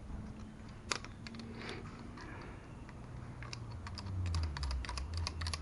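Small hand tools clicking and clinking against metal engine parts during disassembly, a sharper click about a second in and a quick run of clicks in the second half. A low rumble builds underneath from about four seconds in.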